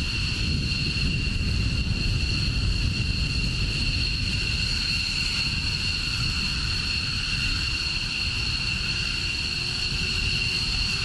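Steady jet-turbine whine, two high tones held level over a low rumble, with a fainter low tone slowly rising in the last few seconds.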